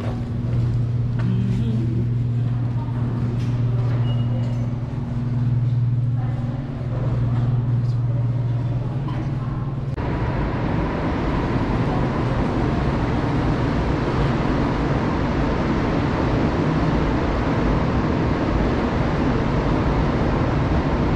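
Rubber-tyred Montreal Metro train in the station: a steady low hum that changes suddenly, about halfway, into a fuller even rushing noise as the train comes into the platform.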